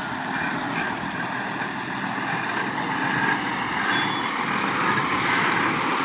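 Heavy diesel engine of an XCMG HB52C truck-mounted concrete pump running steadily, slowly growing louder.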